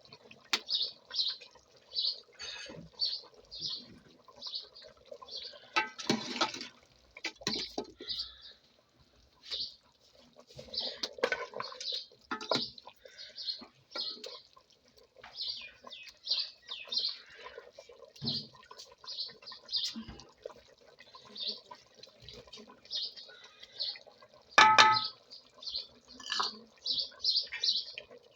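A small bird chirping over and over in short high notes, about two or three a second, over a steady low hum, with a few louder clattering knocks.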